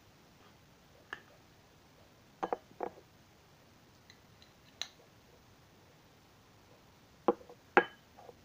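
A utensil clinking against a steel pot and a ceramic plate while food is served out: a few scattered sharp clinks, some with a brief ring, the loudest two near the end.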